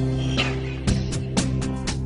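Background music with a steady beat and held low notes.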